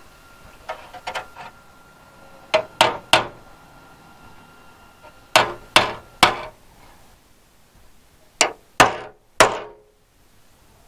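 Hammer striking a steel repair piece on a Triumph TR2 chassis rail, tapping it into place. A few light taps come first, then three groups of three sharp, ringing metal blows.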